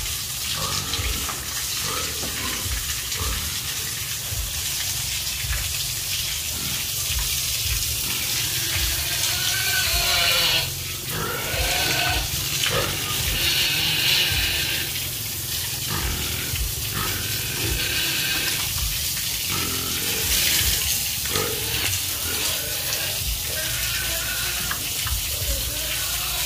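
Piglets grunting with short pitched calls scattered throughout, over a steady hiss of water spraying from a hose.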